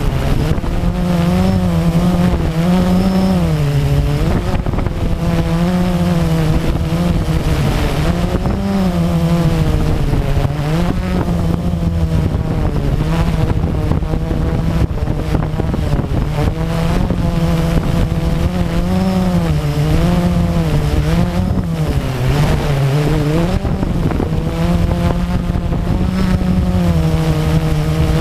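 Electric motors and propellers of a small radio-controlled drone hovering, heard close from its onboard camera: a steady buzz whose pitch keeps dipping and rising.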